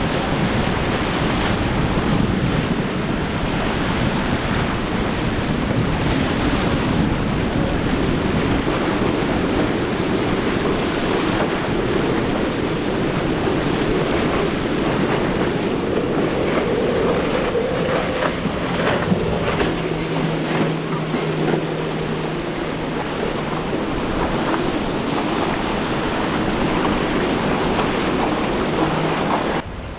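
Rough surf and waves washing at an inlet, with wind buffeting the microphone. A boat engine's drone runs under the surf, rising in pitch around the middle and holding steady in the second half.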